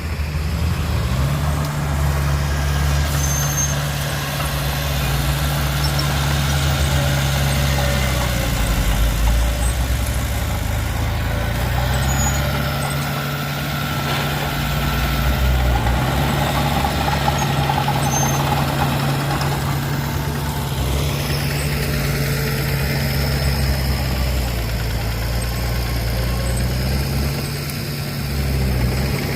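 Diesel engine of heavy earthmoving machinery running continuously, its revs stepping up and down every few seconds.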